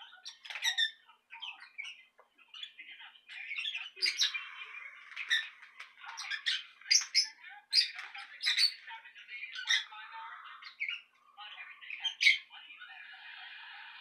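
Small caged pet parrots chirping and squawking, with short sharp high calls about once or twice a second. Near the end the calls give way to a steadier, scratchy chatter.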